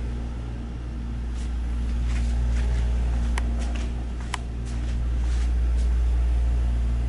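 Steady low hum and rumble, with a couple of faint light clicks about three and a half and four and a half seconds in.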